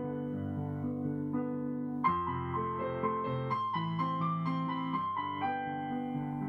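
Background music: a slow, gentle keyboard piece of held piano-like chords, with a new chord struck about two seconds in.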